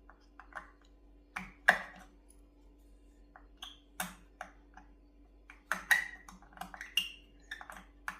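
Irregular light clicks and small metallic clinks of hands handling a cuckoo clock's chain and movement parts, the loudest about two seconds in and a quick run of them near the end.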